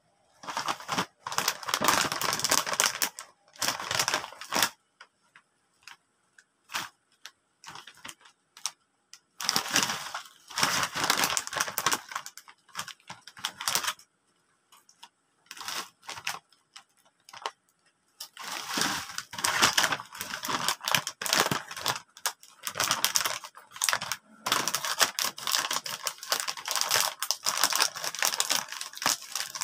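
Crinkling of a plastic snack-chip bag being handled. It comes in three stretches of dense crackling, at the start, about ten seconds in and from about eighteen seconds on, with quieter pauses of scattered ticks between them. Near the end, scissors snip into the bag to cut it open.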